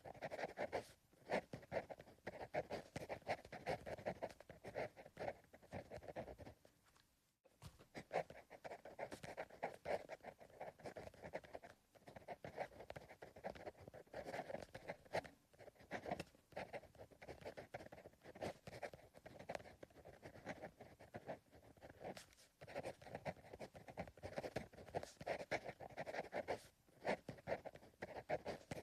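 Pencil writing on paper: a steady run of soft, irregular scratching strokes, with a brief pause about seven seconds in.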